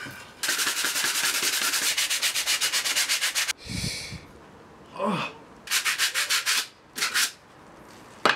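Sandpaper rubbed back and forth by hand on a pine board, in quick even strokes of about eight a second for some three seconds. A dull knock follows, then two shorter bursts of sanding strokes.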